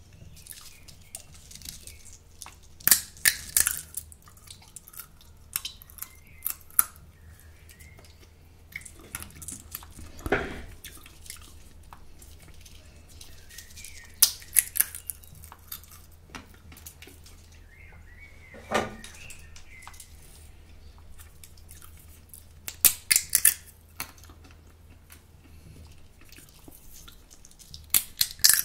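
Roasted, salted sunflower seeds in the shell being cracked open and eaten close to the microphone: clusters of sharp cracks every few seconds, with two duller, lower crunches about ten and nineteen seconds in. A faint steady hum lies underneath.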